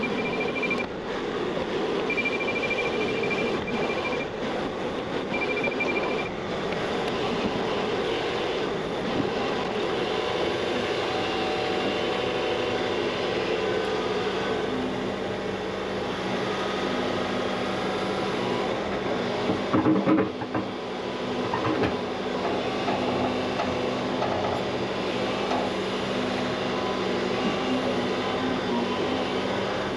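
Excavator's diesel engine and hydraulics running steadily while digging, with a few short high beeps in the first seconds and loud metallic clanks about twenty seconds in; the engine note steadies under load for the second half.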